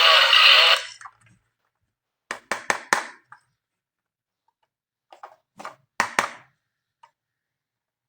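A toy's electronic tune cuts off just under a second in. Then come several sharp hard-plastic clicks and knocks in small clusters, as a plastic toy is handled.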